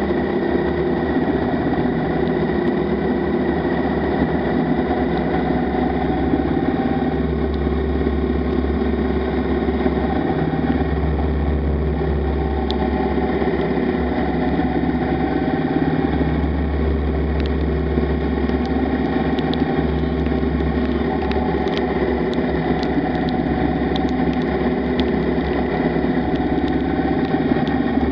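Motorcycle engine running steadily at road speed on a wet road in the rain, with wind buffeting the microphone in a low rumble that swells and drops. A few sharp ticks come in the second half.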